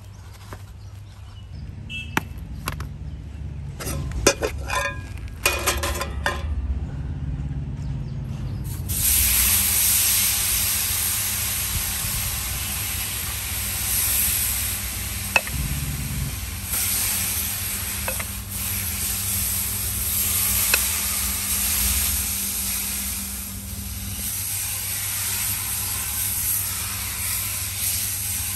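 Several metal utensil knocks and clinks against a cooking pot, then food sizzling loudly in hot oil from about a third of the way in.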